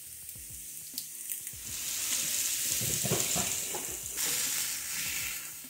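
Seasoned raw mahi-mahi fillets sizzling as they are laid one after another onto a hot cast-iron grill pan. The sizzle grows louder about two seconds in and again near four seconds in, as more fillets go down.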